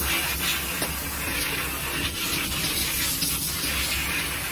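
Steady hiss of air at a vacuum thermoforming machine, with faint crackles from the clear formed plastic tray sheet being handled.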